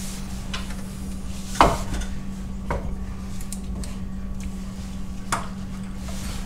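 A handful of sharp metallic clinks and knocks from tools and parts under the car, the loudest about a second and a half in, over a steady low hum.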